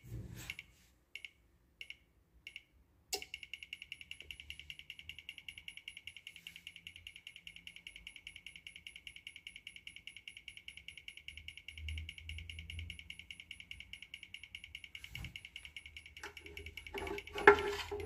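Fast, steady, high-pitched buzzing chatter from the relay on an Electrolux DF80X refrigerator's control board. It comes in a few short bursts at first, then runs continuously from about three seconds in. The relay chatters without switching on the compressor and fan, which the technician takes as the sign of a faulty control board. A few handling knocks come near the end.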